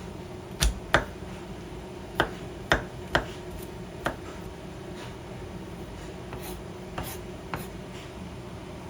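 A series of sharp, short taps and clicks, about eight of them at irregular intervals, over a steady low hum.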